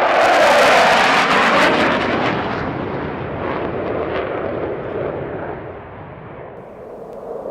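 US F-15 Eagle fighter jet passing low, its twin-engine roar loudest at the start, crackling, then fading away over several seconds.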